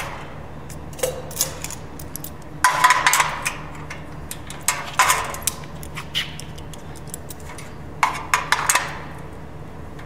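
Galvanized steel studs and track clanking and rattling as a locking C-clamp is fitted and tightened to hold a steel hidden bar support against the frame, in several short bursts of metal knocks.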